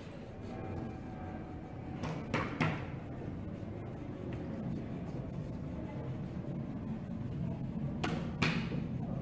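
A hand brushing and shuffling sheets of paper on a cloth-covered tabletop: three quick swishes about two seconds in and two more near the end, over a steady low background hum.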